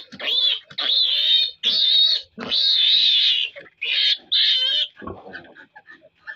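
Piglet squealing, a string of long, high-pitched screams one after another that stops about five seconds in, as it is held and dosed by mouth with medicine.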